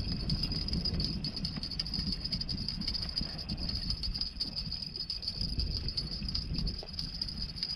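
Wind buffeting the microphone: an uneven low rumble that rises and falls without a break, with a faint steady high-pitched tone.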